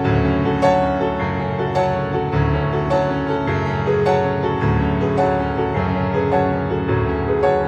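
Background music led by piano, with a note or chord struck about every half second over sustained lower notes.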